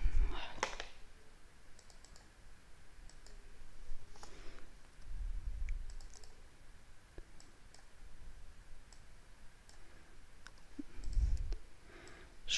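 Scattered computer mouse clicks and a few keystrokes, faint, with a few soft low thuds.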